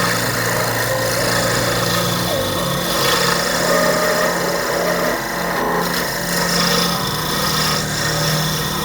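A power tool running with a steady motor hum while material is rasped against it. The hum's pitch shifts about two seconds in and again near seven seconds.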